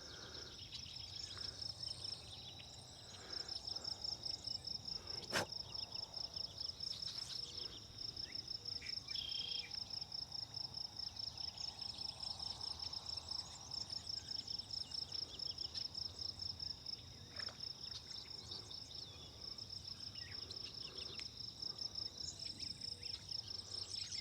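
Insect singing in a steady, fast-pulsing high-pitched trill that breaks off briefly a couple of times, with a single sharp click about five seconds in.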